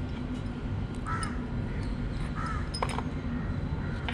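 A bird calling twice, two short calls a little over a second apart, over a steady low background hum.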